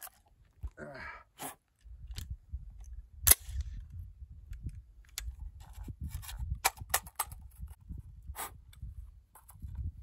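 Sharp metallic clicks and clacks of an AR-15 rifle being worked by hand: the magazine tapped and the action racked while a mud-fouled rifle fails to feed its last round. The loudest clack comes about three seconds in. Wind rumbles on the microphone.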